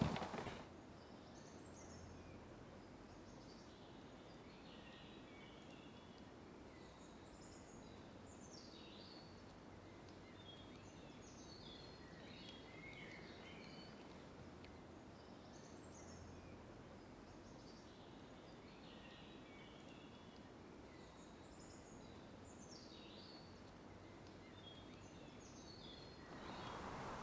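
Faint birdsong over near silence: small birds give scattered short chirps and twitters throughout.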